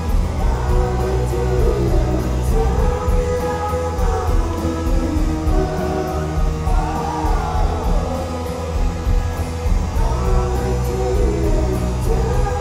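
Live rock band playing: singing over guitars, drums and a heavy bass, heard from among the audience in the hall.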